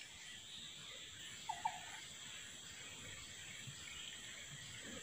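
Faint outdoor ambience: a steady, high insect drone, with two short chirps about a second and a half in.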